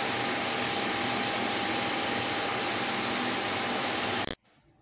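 Digital cinema projector's cooling fans running: a steady whoosh with a thin steady whine, which cuts off suddenly about four seconds in.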